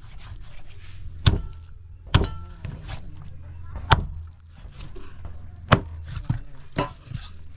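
Large knife chopping through a big trevally on a wooden chopping board: about five sharp chops at uneven intervals, with quieter cutting between them.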